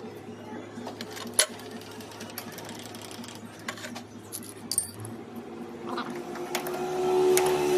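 A workshop machine's motor running with a steady hum, with a few sharp metallic clicks, growing louder over the last two seconds.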